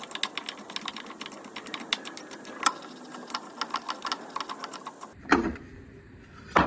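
Ratchet wrench clicking rapidly and unevenly as it backs out a muffler bolt, followed by a louder clunk about five seconds in and a sharp click near the end.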